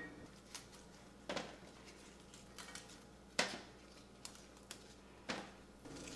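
Scissors snipping flower stems: several short, sharp cuts, irregularly spaced about a second or two apart.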